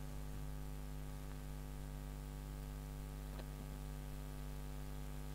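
Steady electrical mains hum in a computer's microphone input, with faint hiss and a faint click about three and a half seconds in.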